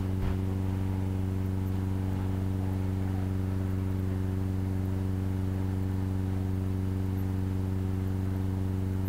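Steady low hum with a stack of higher overtones, unchanging in level, with a faint tick shortly after the start.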